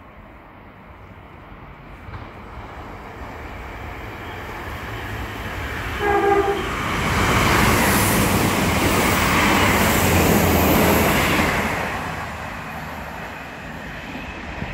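Class 159 diesel multiple unit approaching and running through the station at speed. It gives a short horn blast about six seconds in. The noise of its diesel engines and wheels then builds, peaks as it passes and fades away.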